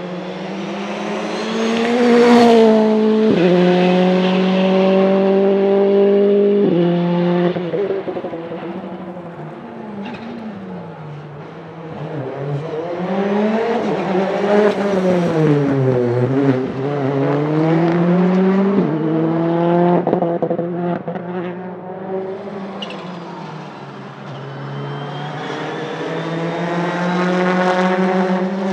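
Citroën C3 R5 rally car's 1.6-litre turbocharged four-cylinder engine accelerating hard through the gears. The engine pitch climbs and drops sharply at each upshift, about three and seven seconds in and again later. In the middle it swoops up and down as the car passes and shifts.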